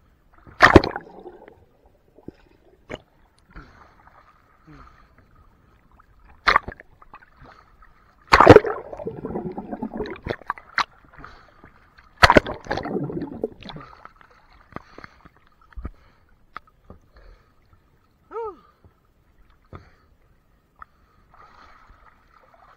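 Water splashing and sloshing close up beside a boat's swim ladder: four sharp splashing hits, the two loudest in the middle each followed by a couple of seconds of splashing. A brief falling squeak near the end.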